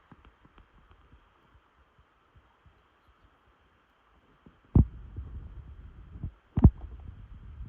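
Two loud, dull thumps nearly two seconds apart, with low rumbling noise between and after them; before them, faint scattered ticks and crackles.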